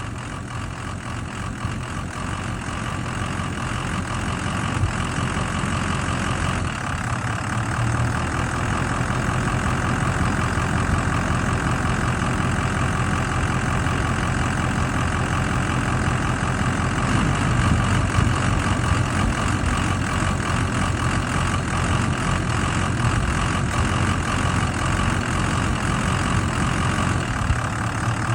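Ford 6.0L Power Stroke diesel V8 idling with a rough idle that the owner says has improved but is still present after two oil changes with the RevX additive. It grows somewhat louder over the first few seconds, then runs steadily.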